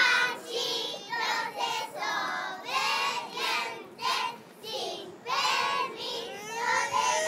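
Young preschool children singing a song in Spanish together, in phrases with short breaks between them.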